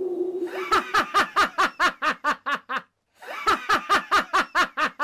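A person laughing in rapid, evenly spaced 'ha-ha-ha' runs, about six a second, in two stretches with a short break about three seconds in. A held low tone fades out within the first second.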